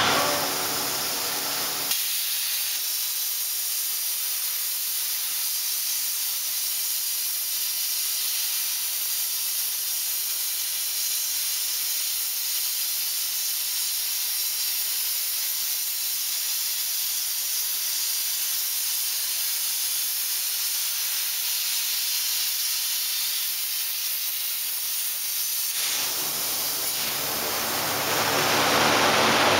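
Robotic arc welding: a steady, even high-pitched hiss from the welding arc that sets in about two seconds in and stops near the end. Before and after it, a lower machine hum with faint steady tones.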